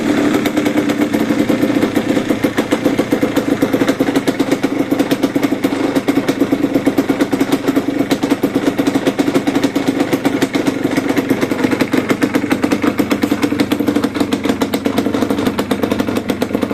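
Suzuki RA125's two-stroke single-cylinder engine idling steadily through a stock Suzuki RG250 Gamma silencer, with a rapid, even exhaust beat.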